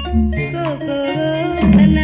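A Burmese pop song playing: a melody line gliding in pitch over bass and percussion.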